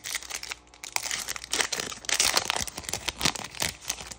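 Foil trading-card pack being torn open by hand and its metallic wrapper crinkled as it is pulled apart: a dense run of crackling and crinkling, loudest in the middle.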